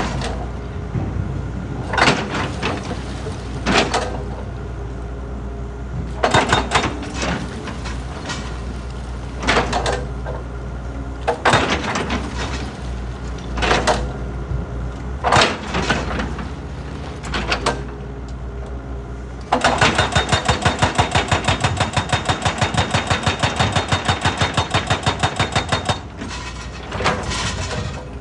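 Rock crusher machinery running with a steady low hum and irregular sharp crunches and knocks as rocks are broken. About two-thirds of the way through it changes to a fast, even pounding of several strokes a second for about six seconds, then the irregular crunching returns.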